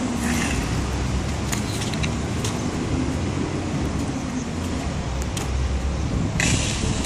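Longboard wheels rolling over a concrete court: a steady low rumble, with a few short sharp clicks scattered through it.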